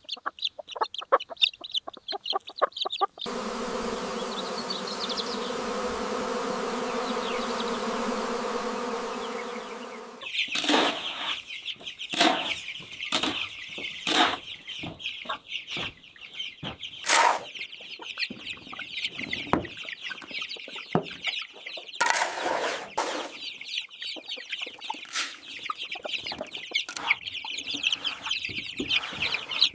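A flock of hens clucking and chattering, with frequent short knocks, clicks and bits of wing flapping. From about three seconds in until about ten seconds in, a steady machine hum with several pitched tones replaces the birds, then the clucking returns.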